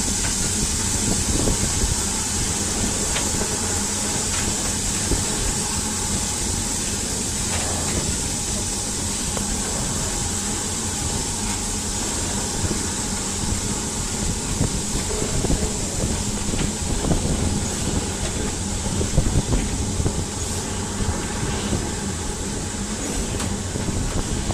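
Steam locomotive running along the line, heard from its footplate: a steady rumble of wheels on the rails with a constant high hiss and scattered light clicks.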